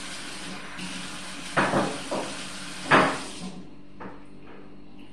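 A few sharp knocks and clatters of household objects being handled and set down, the loudest about a second and a half in and near three seconds. Under them a steady hiss runs and then cuts off suddenly about three and a half seconds in.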